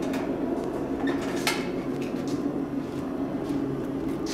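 A few sharp metallic clinks of steel tongs and a hot steel bar being handled, the loudest about one and a half seconds in, over a steady low workshop drone.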